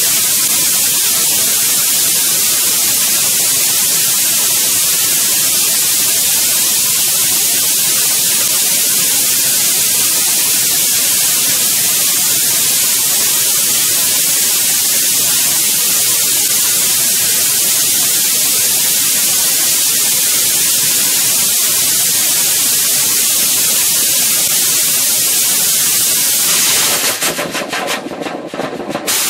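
Hydrogen-peroxide/plastic hybrid rocket engine of about 1,200 N thrust firing on a static test stand, a loud, steady hiss. About 27 seconds in the thrust cuts off and the engine sputters and crackles unevenly as the burn ends.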